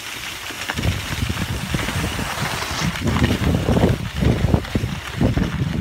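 Skis sliding and scraping over packed, tracked snow, with wind rumbling unevenly on the phone's microphone and getting louder from about three seconds in.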